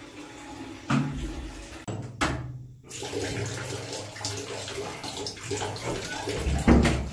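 Shower water running steadily, with a sharp thump about a second in and a louder knock near the end.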